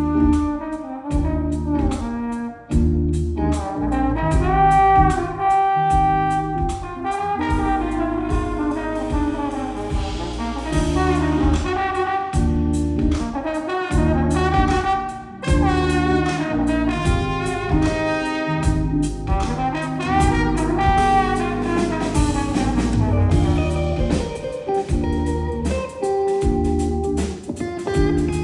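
A live band playing an instrumental passage of a pop-rock song. Drums and bass keep a steady beat under a lead melody of held notes that bend and slide in pitch.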